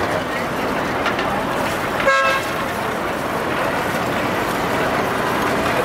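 A single short vehicle horn toot about two seconds in, over steady outdoor traffic and crowd noise.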